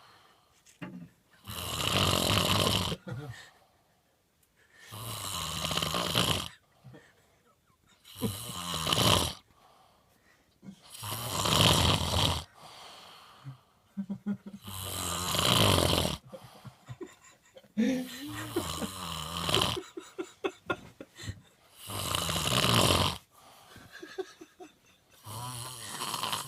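Snoring in a steady rhythm: about eight long, rasping snores, one every three to four seconds, with fainter rattling breaths between some of them.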